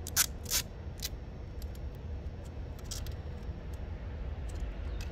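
Scissors and sticky tape being worked: a few short, sharp snips and rips, the two loudest within the first second and fainter ones later, over a steady low rumble.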